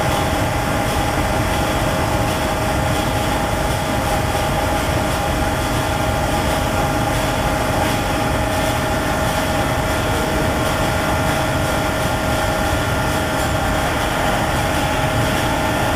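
Steady mechanical drone with a few held tones over a low rumble, unchanging throughout.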